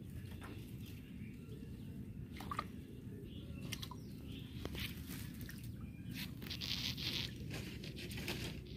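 Cast net being hauled in by hand through shallow canal water: soft splashes and drips, with scattered small clicks, over a steady low rumble.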